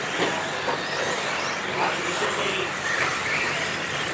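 Electric RC stadium trucks with 13.5-turn brushless motors racing on a dirt track: several high motor whines rising and falling as the trucks accelerate and brake through the corners, over a steady rushing background.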